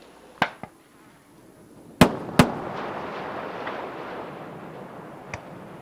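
Space Shuttle Endeavour's double sonic boom, heard from the ground: two sharp cracks less than half a second apart, about two seconds in, followed by a rumble that fades slowly. The two booms come from the orbiter's nose and tail shock waves as it descends at supersonic speed.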